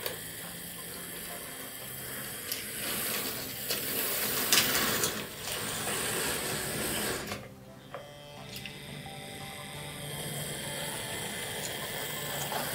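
Hornby 00-gauge model train running along the track: a small electric motor whirring with the wheels clicking on the rails. It grows louder as the train passes close, then drops briefly about seven and a half seconds in.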